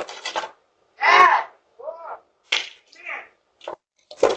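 Boys' voices calling out in short, unintelligible bursts through a doorbell camera's microphone, the sound cutting out to dead silence between bursts.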